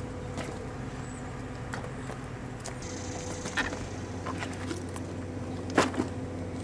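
Wooden bushel baskets knocking and scraping as they are stacked, with a sharp knock about three and a half seconds in and a louder one near the end, over a steady low mechanical hum.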